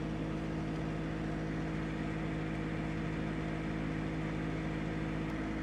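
Countertop air fryer oven running in air-fry mode at 420 degrees, its fan making a steady, even hum.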